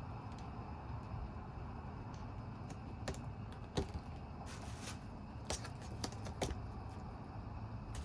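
Scattered small clicks and taps, a handful of sharp ticks about a second apart: hand tools working on a monitor's backlight housing while the wire to a compact fluorescent tube is cut.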